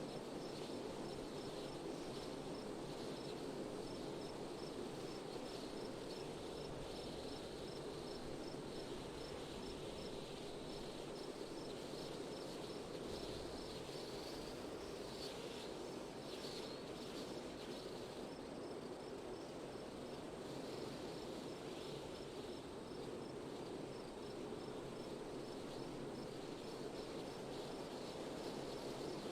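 Steady wind blowing without gusts, with a high, regular chirping repeating a few times a second.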